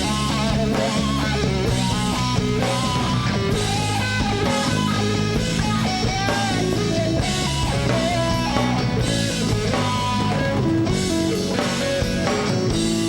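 Rock band playing: electric guitars with bass and a drum kit, a melodic line bending in pitch over a steady low end.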